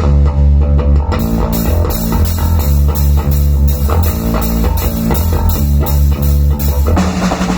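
Bass guitar and drum kit playing a rock riff: the bass holds heavy low notes while a cymbal is struck about two to three times a second. Near the end the drumming turns busier and denser.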